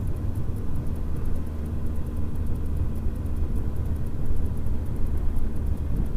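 Honda Hornet 900's inline-four engine running steadily at road speed through its newly fitted exhaust system, heard from the moving bike as an even, low rumble.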